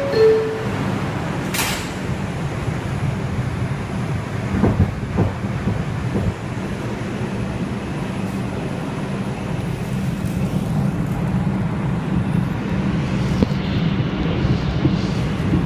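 Inside an R142 subway car on the move: a steady rumble of the train running on the track. A short falling two-note tone sounds at the very start, a sharp click comes about a second and a half in, and a few knocks follow around five seconds in.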